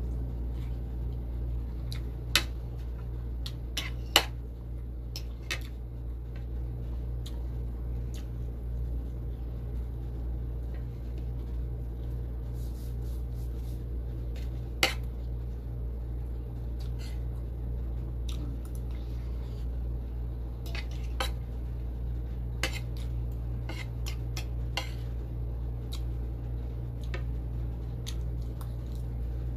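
Spoon and fork clinking and scraping against a plate while eating, with three sharper clinks standing out, over a steady low hum.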